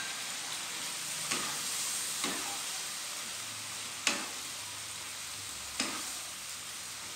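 Broccoli, carrot and shrimp sizzling in sauce in a nonstick wok as a wooden spatula stirs them, with a few sharp knocks of the spatula against the pan.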